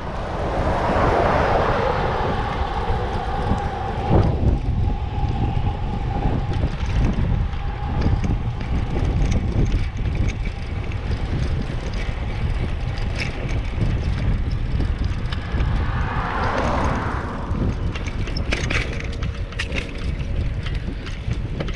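Wind buffeting the microphone of a camera riding on a moving bicycle, a steady low rumble with road noise. A passing vehicle swells and fades twice, once at the start and again about three-quarters of the way through, and a few sharp clicks come near the end.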